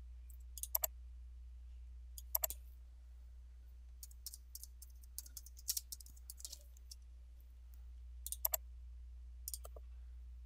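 Computer mouse clicks, mostly in quick pairs, with a short run of keyboard typing in the middle, over a steady low hum.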